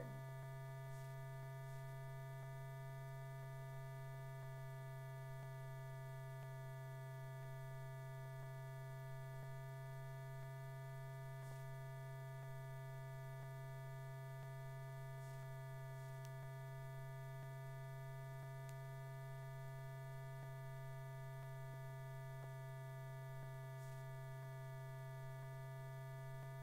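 Steady low electrical hum with a row of fainter higher tones over it, unchanging, the mains hum carried on an old film soundtrack.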